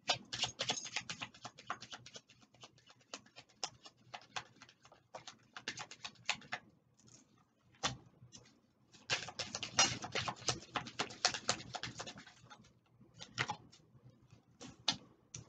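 A deck of oracle cards being shuffled by hand: runs of rapid papery clicks and flicks, broken by a few short pauses and one longer pause near the middle.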